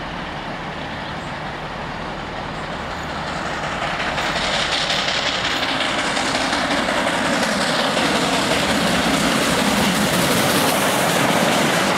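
LNER A4 three-cylinder Pacific steam locomotive 60019 Bittern and its train approaching and running through at speed. The rush of the train swells from about four seconds in and stays loud as the engine draws level.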